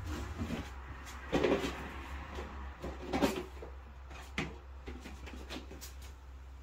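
Plastic tubs being slid and knocked against chrome wire shelving, a handful of irregular scrapes and clunks, over a steady low hum.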